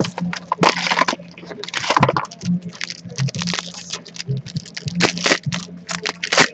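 Trading cards and their foil pack wrapper being handled: crisp crinkling, sliding and clicking as cards are flipped through one by one.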